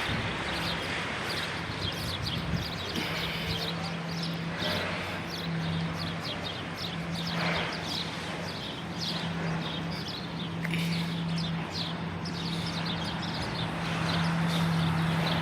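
Small birds chirping over a steady low engine hum and the faint noise of a town street.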